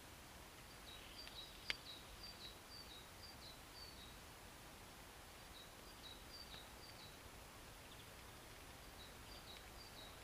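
Near silence with a small bird chirping faintly in the background: short runs of quick, high, repeated notes that come and go. One sharp click about two seconds in.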